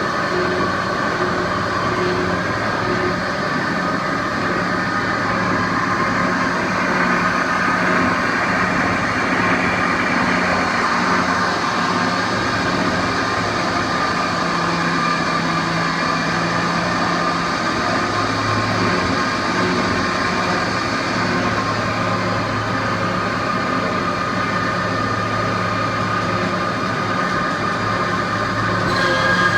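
Refurbished Marvel 8 Mark II metal-cutting bandsaw running and cutting steel tube: a steady low hum with several steady higher whining tones over it.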